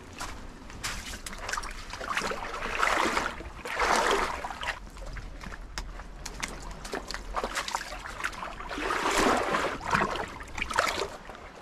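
Seawater sloshing and washing against rocks at the shoreline, swelling up twice, with scattered clicks and knocks from footsteps on stones and carried fishing gear.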